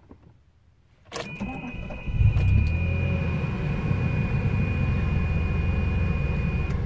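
1981 DeLorean DMC-12's PRV 2.85-litre V6 started from inside the cabin: a click about a second in, a second of starter cranking, then the engine catches and settles into a steady idle through its upgraded exhaust. A steady high warning tone from the dash sounds from the click until shortly before the end.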